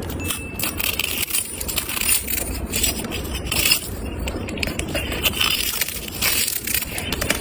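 Cat chewing and licking a pink jerky lollipop treat on a stick: an irregular run of small crunching clicks.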